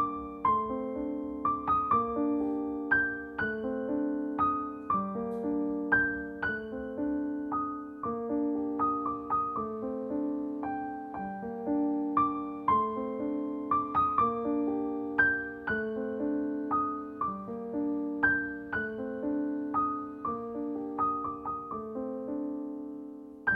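Background piano music: a gentle piece of repeating broken chords over held low notes.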